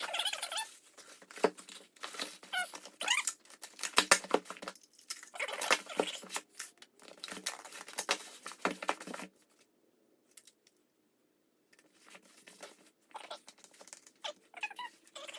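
Sandpaper worked by hand inside a freshly turned belt-sander drive wheel: irregular scratchy strokes that stop about nine seconds in, followed by fainter rustling near the end.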